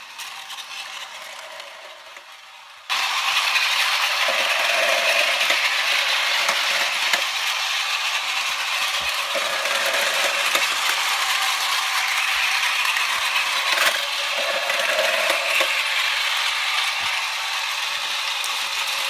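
Battery-powered Plarail toy trains running on plastic track: a steady gearbox whir with rattling wheels, starting suddenly about three seconds in after a quieter stretch.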